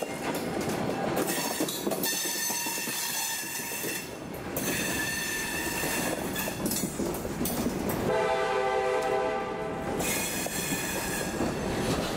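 A string of empty hopper cars rolling past close by, with a steady rumble and clatter of wheels on the rails. High-pitched wheel squeal comes and goes through it, and a lower tone sounds for about two seconds roughly two-thirds of the way through.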